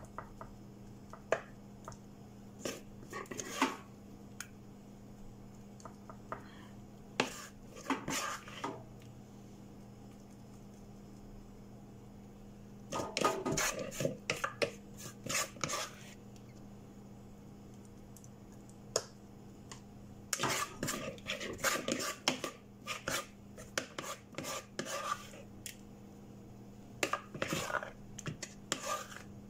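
Kitchen utensils scraping and knocking against a plastic mixing bowl and a metal muffin tin as oat batter is scooped and spooned into the cups. The clatter comes in scattered bursts of short clicks and scrapes, the longest starting about 20 seconds in.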